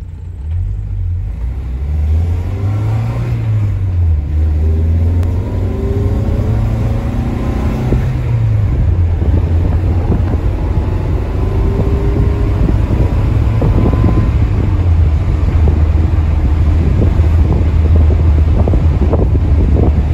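Peugeot 504 Coupé engine heard from inside the cabin, accelerating. Its pitch rises, then drops twice as it shifts up, about 3 s in and again about 8 s in. It then cruises at a steady pitch, with road and wind noise growing.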